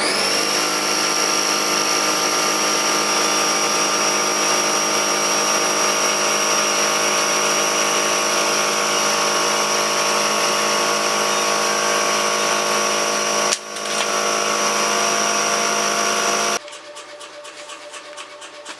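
A small electric motor, like a power tool's, running with a steady high-pitched whine. It spins up at the start, drops out for a moment and picks back up about three-quarters of the way through, then cuts off shortly before the end.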